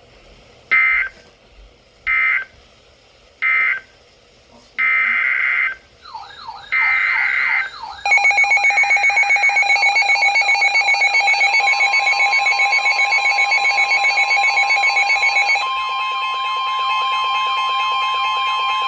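Emergency Alert System header: a series of short, screechy digital data bursts (the SAME code that opens a new warning), then a loud electronic alert tone that pulses rapidly, several pitches at once. About two-thirds of the way through it changes to a steady alarm tone.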